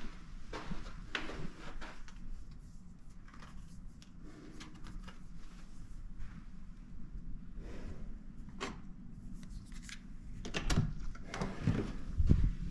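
Soft knocks and rustles of movement along a carpeted corridor. Near the end comes a cluster of sharp clicks and heavier thuds as a key-card hotel door lock is unlocked and the door handle is worked.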